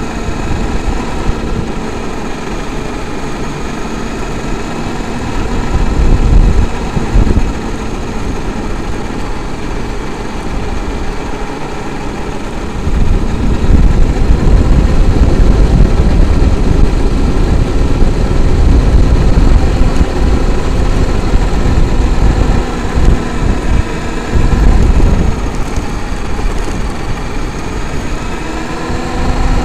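Traxxas X-Maxx electric RC monster truck driving, its brushless motor and drivetrain whining steadily under tyre and wind rumble picked up by the onboard camera. The rumble grows louder from about halfway through, and the whine rises in pitch near the end as the truck speeds up.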